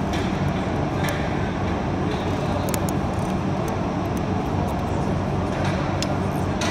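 A steady mechanical drone with a low hum holds at an even level throughout. Over it come a few light metallic clicks, spread unevenly, from a wrench and feeler gauge working a valve rocker's adjusting screw.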